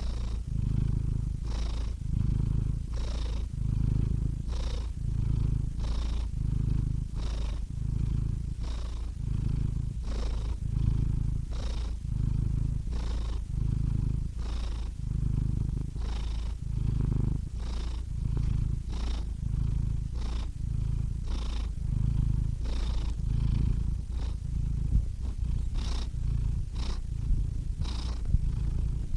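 Domestic cat purring: a steady low rumble that swells and fades about once a second as the cat breathes in and out.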